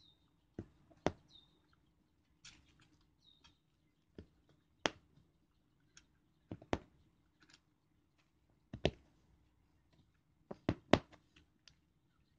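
Irregular sharp clicks and taps, about a dozen, from small plastic LED string-light bulbs and their wire being pushed through cut slits in a stretched canvas and handled.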